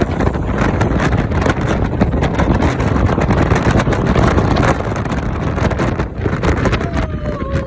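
Wind buffeting the microphone: a loud, steady rushing rumble. A thin wavering tone comes in near the end.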